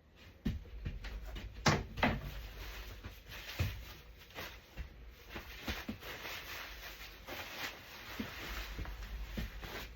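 Plastic and fabric parts of a Graco Pack 'n Play playard being handled and fitted together: a run of clicks, knocks and rustling, loudest about two seconds in.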